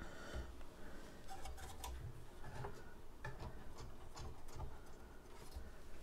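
Faint, irregular clicks and ticks of a screwdriver working the screws of a desktop computer's CPU heatsink.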